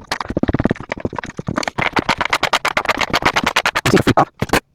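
Rapid metallic clicking and scraping, about ten clicks a second, as a stuck chainsaw clutch drum is rocked back and forth with pliers on the crankshaft. The drum is seized because it overheated and melted plastic is holding it in.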